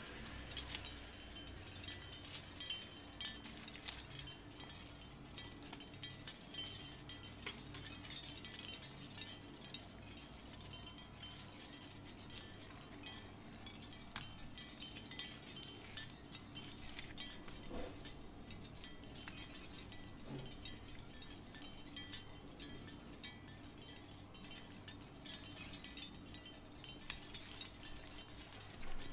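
Light tinkling and clicking of the small metal parts of a miniature finger bike as they are handled and taken apart with tweezers and a screwdriver, with a few sharper ticks.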